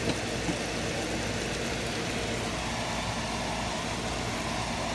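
Steady kitchen background hum and hiss, with a couple of faint taps near the start.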